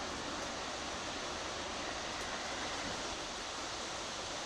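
Steady rain falling during a thunderstorm, an even hiss.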